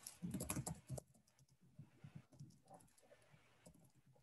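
Typing on a computer keyboard, faint: a quick run of keystrokes in the first second, then lighter, scattered taps.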